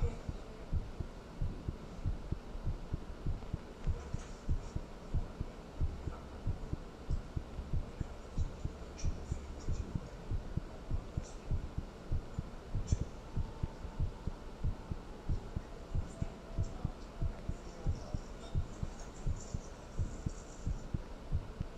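A human heartbeat: a steady, even run of dull low thumps, with a few faint high clicks scattered through it.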